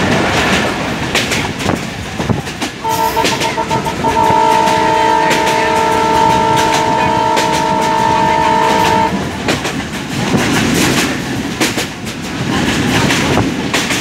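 Passenger train running, heard from an open coach door: steady rumble with wheels clacking over rail joints. About three seconds in, the locomotive's horn sounds, a few quick stuttering toots and then one long steady blast of about five seconds.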